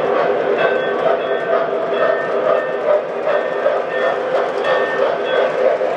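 Lionel O-gauge model train running along the layout track: a steady motor hum and wheel rumble with faint clicking over the rails.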